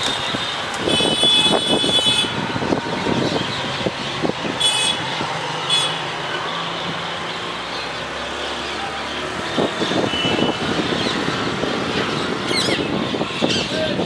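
Steady outdoor din of road traffic mixed with the calls of a large flock of bank mynas. A high hiss, like a truck's air brake, comes about a second in and lasts about a second, with two short hisses around five seconds.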